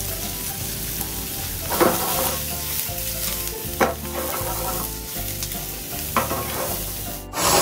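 Shimeji mushrooms sizzling in a frying pan over a gas flame as they are stirred and turned with metal tongs, with three sharp clacks of the tongs against the pan.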